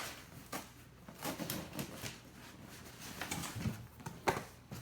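Cardboard boxes being handled: scattered light rustles and small knocks, with one sharper knock near the end.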